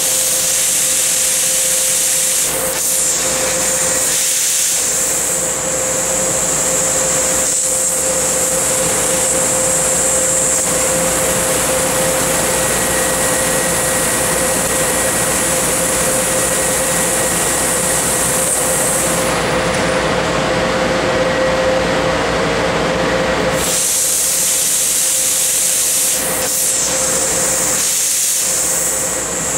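Tanaka LMX-IIZ 6 kW laser cutter cutting 3/4-inch mild steel: a steady loud hiss from the cutting head, with a steady mid-pitched tone underneath. The highest part of the hiss drops away for a few seconds about two-thirds of the way through, then comes back.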